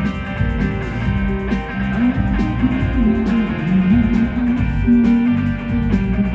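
Rock band playing live: guitars over bass and drums, with a drum stroke a little under every second.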